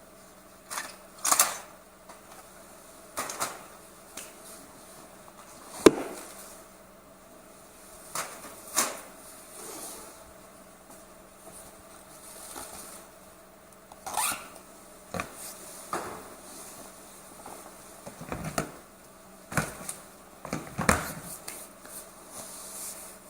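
Irregular knocks and clicks of objects being handled, about a dozen sharp sounds scattered unevenly with quiet gaps between them.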